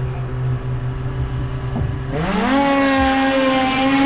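800-class stock race snowmobiles idle on the start line, then launch about two seconds in at full throttle. The engine note sweeps sharply up and then holds at a steady high pitch.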